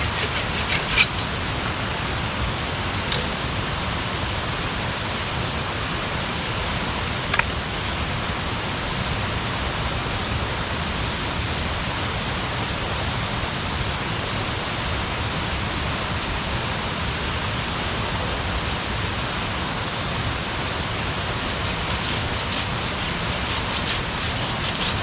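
Wood campfire burning: a steady rushing hiss with occasional sharp crackles and pops, a few in the first second, one about seven seconds in, and several near the end.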